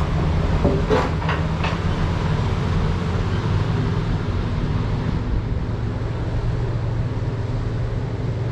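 An engine running steadily with a low, even hum, with a few clunks about a second in.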